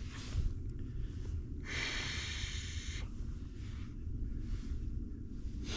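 Low, steady rumble of wind buffeting the microphone, with a person's breath: a breathy exhale lasting about a second starting near two seconds in, and shorter breaths at the start and end.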